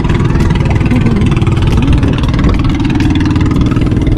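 Steady wind buffeting the camera's microphone aboard a small sailing catamaran under way, a loud, unbroken rumble.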